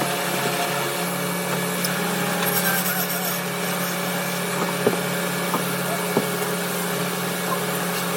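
Wood-turning lathe running with a steady hum, with a few sharp clicks about five and six seconds in.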